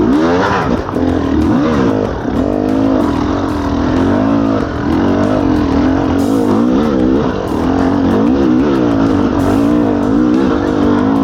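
Dirt bike engine revving up and down again and again, the throttle worked hard as the bike climbs through rough terrain.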